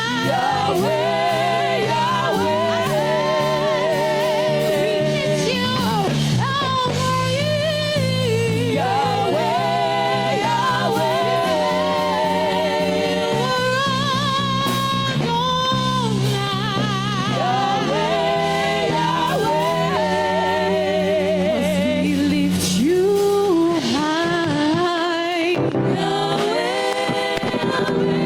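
Gospel worship singing: a voice sings a slow melody with heavy vibrato over sustained keyboard chords.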